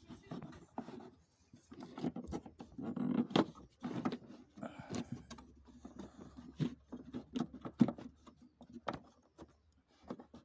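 Irregular plastic clicks, knocks and rustling as a car's cabin air filter is pushed and seated into its plastic housing by hand.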